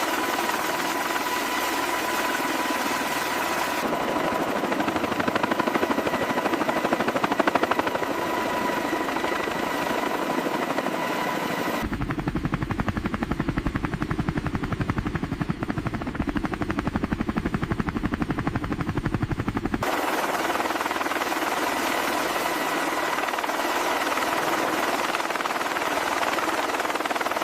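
Heavy-lift helicopter rotors beating steadily in a fast, even chop. The sound changes abruptly about twelve seconds in, turning deeper, and shifts back near twenty seconds.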